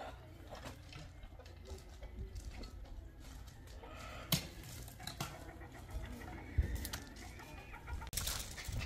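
Birds calling faintly in short clucking notes, with a few sharp knocks and a steady low rumble underneath.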